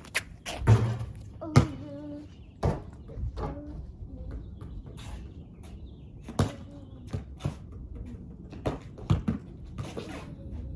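Basketball bouncing on a concrete driveway: irregular single thuds with gaps between them, the loudest in the first two seconds.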